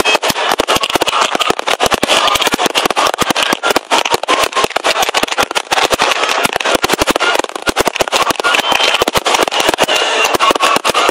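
Aerial fireworks display: a rapid, continuous barrage of bangs and crackles from bursting shells and comets, with no let-up.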